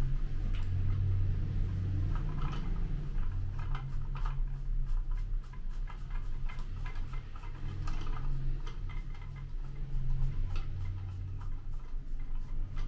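Irregular small clicks and ticks of hard plastic parts of a toilet fill valve being handled, fitted and twisted together, over a steady low hum.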